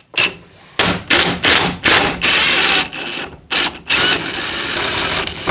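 Cordless impact driver with a 7/16 nut-driver bit backing out a garage door hinge's bolts. It comes in several short trigger bursts, then longer runs, with a steady run over the last second and a half.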